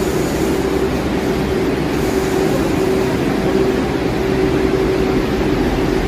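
New York City 42nd Street Shuttle subway train pulling out, its cars rolling past the platform: a steady rumble of wheels on rail with a constant droning tone running through it.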